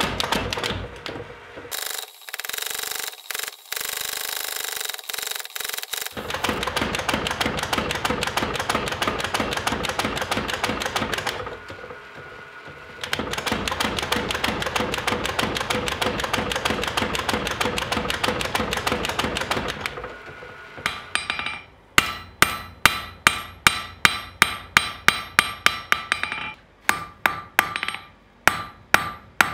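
A mechanical power hammer pounds hot steel in rapid, steady blows, easing off once briefly. About 21 seconds in it gives way to a hand hammer striking the hot steel on an anvil, about two or three ringing blows a second.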